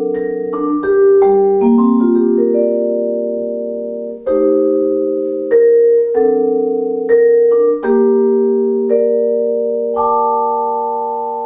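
Solo vibraphone played with four mallets: chords struck one after another, each ringing on into the next. A last chord, struck about ten seconds in, is left to ring and slowly fade.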